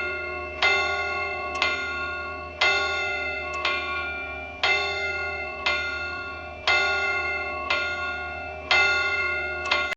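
A clock bell striking twelve o'clock: about ten strokes roughly a second apart, each ringing on into the next. The ringing cuts off suddenly at the end.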